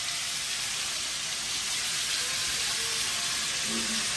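Smash-burger patties frying on the stovetop with a steady sizzle.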